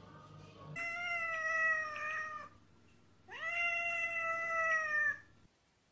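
Domestic cat giving two long, drawn-out meows, each close to two seconds, with a short pause between them.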